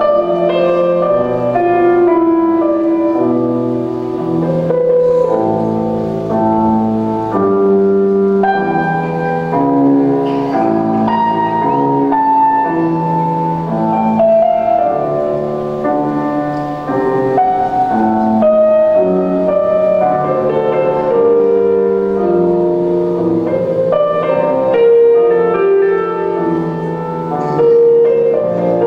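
Instrumental music: a melody of long held notes over lower accompanying notes.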